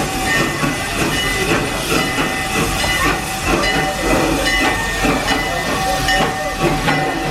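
Park train at the station, with steam hissing amid clattering and two steady tones that come and go.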